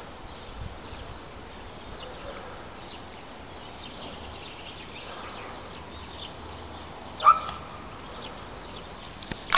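A single short, loud animal call about seven seconds in, over a steady outdoor background hiss, with a couple of sharp clicks near the end.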